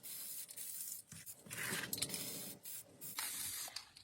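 Aerosol spray paint can hissing in several short bursts with brief gaps between them, as a matte black base coat is sprayed onto 3D-printed parts.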